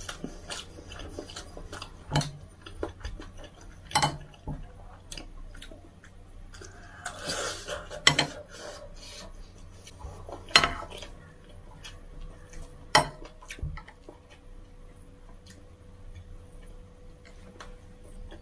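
Metal spoon scooping fried rice off a ceramic plate, scraping across the plate and clinking against it about five times, with a longer scrape about seven seconds in.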